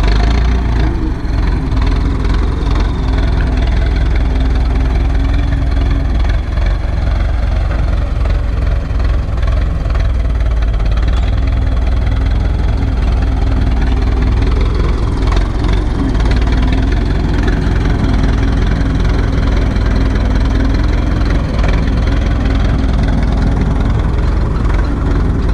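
Turbocharged four-cylinder diesel engine of an Ursus C-360 tractor running steadily under load as it pulls a cultivator across ploughed ground, passing close by.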